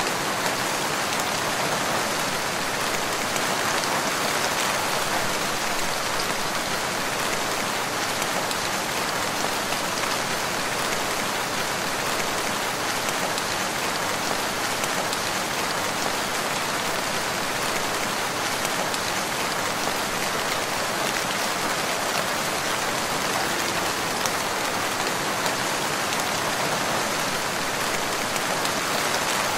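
Steady rain falling, an even, unbroken hiss with no gusts or pauses.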